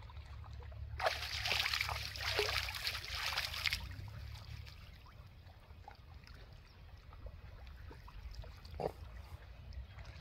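Water splashing and sloshing as a fishing net is hauled by its rope through shallow water. It is loudest for about three seconds starting a second in, then drops to quieter trickles and small splashes.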